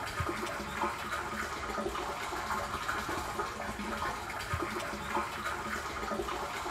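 Pumped water pouring steadily from a PVC pipe outlet and splashing into a partly filled water tank.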